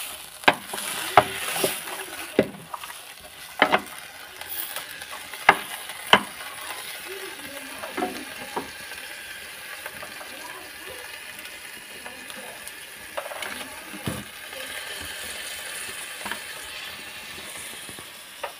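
A wooden spoon stirring beans in a metal pot, knocking sharply against the pot several times in the first few seconds, under a steady sizzle from the pot cooking over a wood fire.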